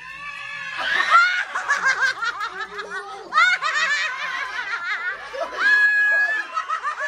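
A group laughing hard in high-pitched voices, with rapid bursts of giggling and squealing and a long held shriek about six seconds in.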